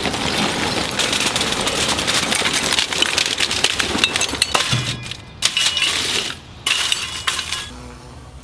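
Lump charcoal poured from a paper bag, the pieces clattering and clinking onto a foil-lined pit floor in a dense, continuous run. There are two short breaks in the pouring near the end, and it stops just before the end.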